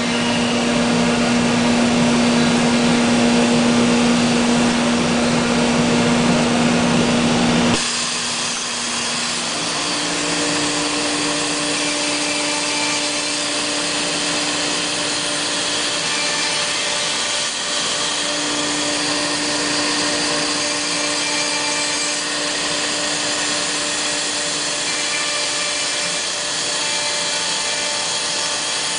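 CNC machining centre routing a solid wood door: a loud, steady spindle whine with cutting noise that drops off abruptly about eight seconds in. After that the machine runs on more quietly, with a higher steady tone coming in a couple of seconds later.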